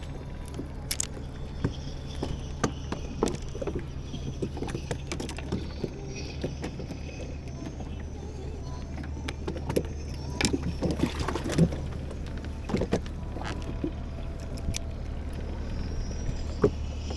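A steady low engine-like drone runs throughout, with scattered clicks and knocks of fishing gear and a plastic bait box being handled in a small wooden boat, busiest a little past the middle.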